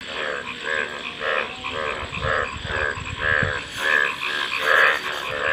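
Frogs calling: a steady run of short, repeated croaks, about two a second.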